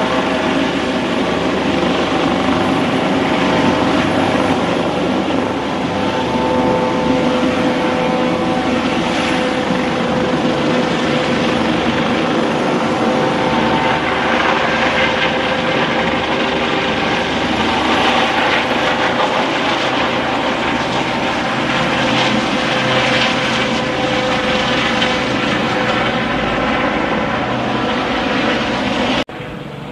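Eurocopter AS365 N3 Dauphin twin-turbine helicopter hovering close by: steady rotor and turbine noise with a steady whine. The level drops suddenly near the end.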